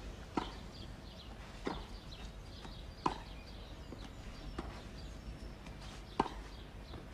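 Tennis ball struck back and forth in a baseline rally: five sharp racket-on-ball pocks, roughly one every one and a half seconds, over a steady hiss of broadcast background noise.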